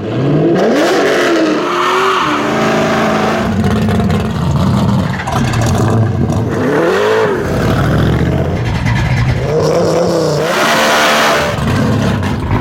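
Muscle-car V8 engines revving hard, the engine note rising and falling in about three big swells, with a burst of harsh, hissing noise about ten seconds in.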